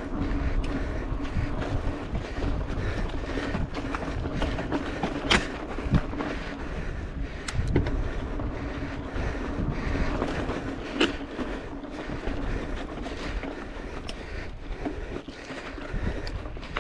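Mountain bike riding over a dirt trail and rock: the knobby tyres roll with a steady crunching noise and the bike rattles, with a few sharp knocks over bumps.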